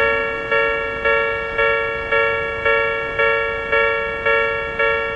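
Japanese railway level-crossing warning bell ringing, a steady ding repeated about twice a second, each ding fading before the next.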